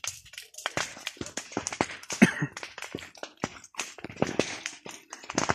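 Footsteps on dry grass and burnt ground, quick irregular steps about three a second, with one short, louder sound about two seconds in.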